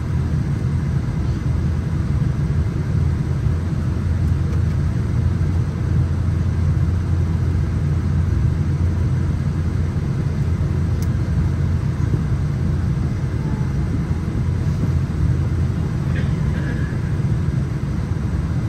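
Steady low rumble inside the cabin of a Boeing 787-9 Dreamliner during pushback from the gate.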